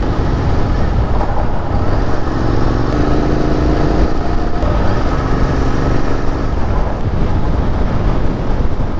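Royal Enfield Interceptor 650's parallel-twin engine running at highway cruising speed, under a heavy rush of wind and road noise. For a few seconds in the middle a steadier pitched hum stands out above the noise.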